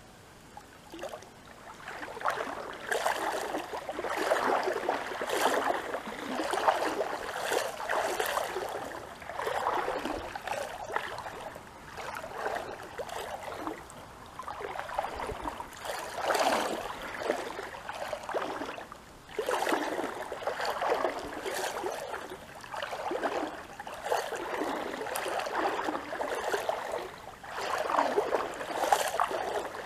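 Water splashing and gurgling in irregular surges every two to three seconds, starting about two seconds in.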